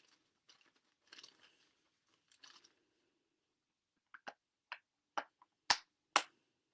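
Paper rustling as receipts are handled, then five sharp clicks about half a second apart, the last two loudest.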